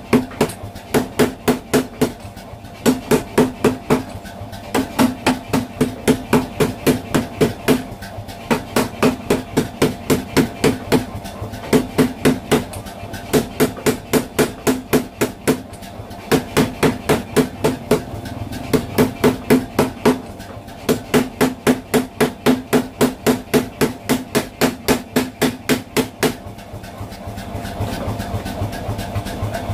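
Power hammer pounding a red-hot steel knife blade: rapid strikes, several a second, in bursts of one to two seconds with short breaks. About 26 seconds in the strikes stop and the machine keeps running with a steady hum.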